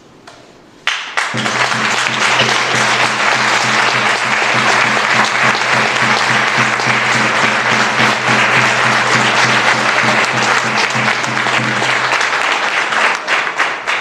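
Audience applauding: clapping breaks out about a second in, holds steady, then thins to scattered claps and dies away near the end. A steady low held musical tone runs under the clapping and stops about twelve seconds in.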